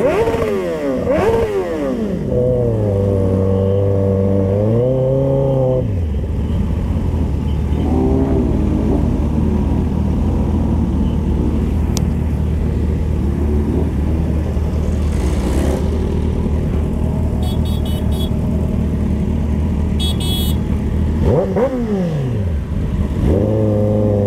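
Kawasaki ZX-10R's inline-four engine at low revs while the bike rolls slowly. Quick throttle blips rise and fall in the first couple of seconds, the revs hold a little higher until about six seconds in, then it settles to a steady idle, with one more rev rise and fall near the end.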